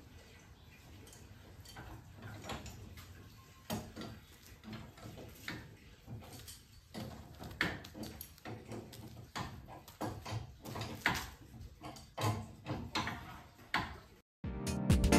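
Irregular light knocks and taps of hand work on a car's dented rear quarter panel, coming more often as it goes on. Loud music cuts in near the end.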